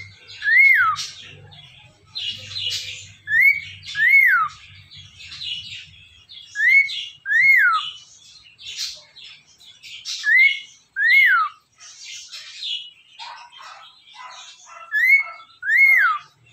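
Cockatiel whistling a repeated two-note phrase, each note rising then falling, five times at intervals of about three to four seconds. Between the phrases a budgerigar chatters and warbles.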